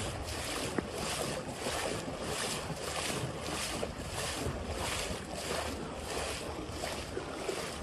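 Rain falling on a flooded street, a steady hiss of water that pulses a few times a second, with wind buffeting the phone's microphone.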